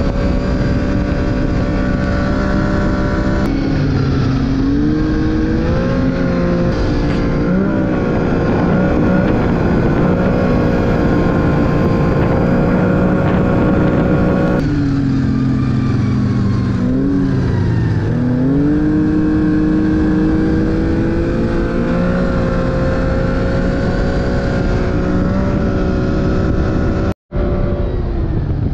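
Arctic Cat snowmobile engine running on the trail, its pitch rising and falling as the throttle opens and closes. The sound cuts out for a moment near the end, then resumes.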